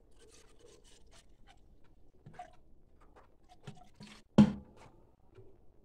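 Plastic bottles and a measuring cup being handled: faint clicks and rustles, then one sharp knock a little after four seconds in.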